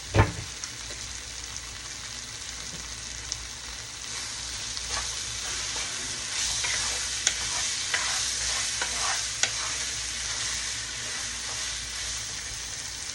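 Food sizzling as it fries in a pan: a steady hiss that gets louder about four seconds in, with a sharp knock right at the start and scattered short clicks and taps.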